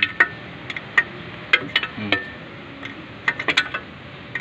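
Irregular sharp metallic clinks, some with a brief ring, from a wrench working a bolt that jacks a worn bearing off a truck wheel spindle.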